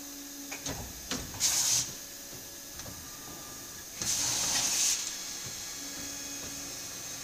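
Willemin Macodel W 408 B machining center working: a few sharp clicks, then two loud bursts of hiss, a short one about a second and a half in and a longer one at about four seconds, over a steady faint machine hum.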